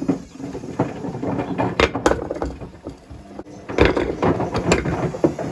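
Bricks tumbling in the drum of a Hotpoint Smart Tech WMFUG742 washing machine on a wool cycle, knocking and clunking irregularly as the drum turns, with the loudest bangs about two seconds in and again around four seconds in.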